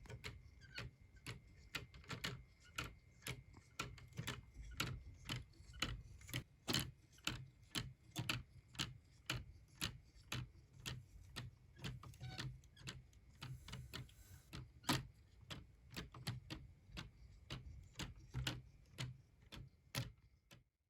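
A handmade mechanical clock's escapement ticking steadily, about two to three sharp ticks a second, as the completed clock runs.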